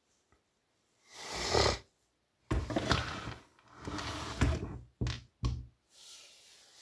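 Hand tools and a chainsaw carburettor handled on a workbench: a short swelling rush of noise about a second in, then a run of knocks, scrapes and clatter.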